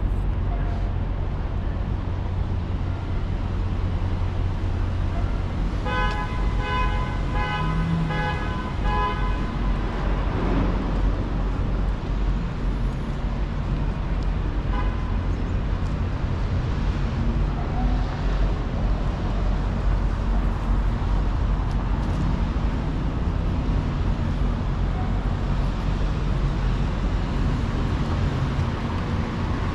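City street traffic: a steady low rumble of passing vehicles. About six seconds in, a vehicle horn sounds in quick repeated beeps for about three seconds.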